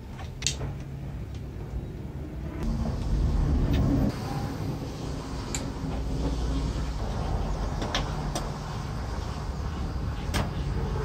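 Hands handling a CRT monitor's metal chassis and wiring: scattered sharp clicks and knocks of metal and plastic parts. Under them runs a steady low rumble, louder for about a second and a half some three seconds in.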